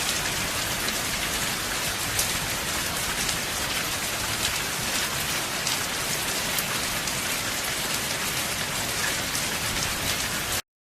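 Steady heavy rain on a roof: a dense hiss with many sharp individual drop taps. It cuts off suddenly near the end.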